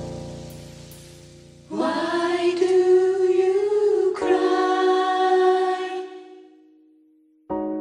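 Gospel choir of women's voices singing a slow held phrase in close harmony. A piano chord dies away at first, the voices enter about two seconds in and shift to a new chord about four seconds in before fading, and a fresh piano chord is struck near the end.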